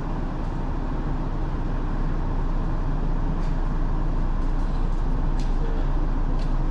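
Nishitetsu electric commuter train heard from inside the carriage, running with a steady rumble that grows a little louder. There are a few faint short ticks in the second half.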